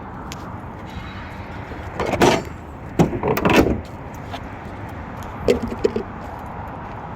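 A car door being worked: a sharp latch click, then a longer noisy sound as the door moves, and a few light knocks a couple of seconds later.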